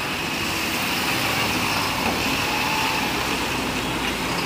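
Tata Signa 2823.T tanker truck driving slowly past, its diesel engine running steadily under road and tyre noise.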